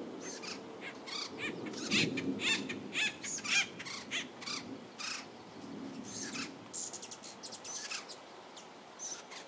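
A small bird chirping over and over, short sweeping chirps coming two or three a second with pauses between runs. Under it a low rumble of distant thunder, strongest near the start and again about six seconds in.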